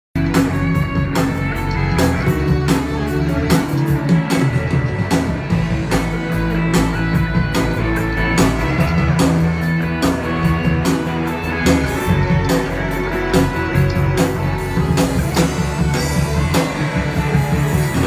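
Live band playing a rock-style song through PA speakers: electric guitar over bass with a steady drumbeat.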